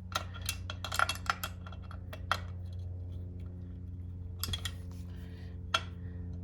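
Irregular metal clicks and clinks of a wrench working on the rear chain-adjuster bolts of a dirt bike, thickest in the first two seconds and again twice near the end, over a steady low hum.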